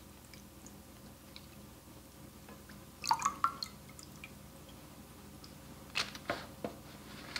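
Quiet dripping of lye solution and light clinks of a slotted spoon and spatula against a glass bowl as a pretzel braid is lifted out of the lye bath. A cluster of taps about three seconds in, and a few more taps about six seconds in as the braid is set down.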